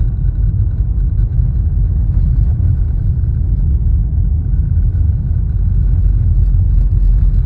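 Car driving along a snow-covered road: a steady low rumble of tyres and engine.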